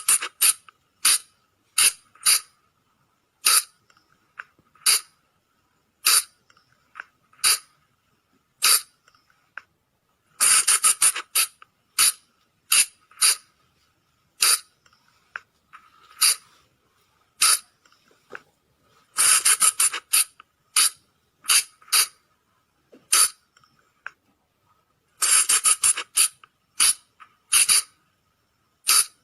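Sunda colugo (flying lemur) calls: short, sharp, high squeaky calls that come in quick bursts of several, with single calls about a second apart in between, repeating over and over. This is the call played as a lure to draw colugos in at night.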